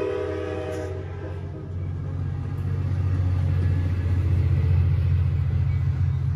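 A train horn chord dies away about a second in. Then the diesel locomotive of a Trinity Railway Express commuter train passes close by with a deep, steady engine drone that grows louder toward the end.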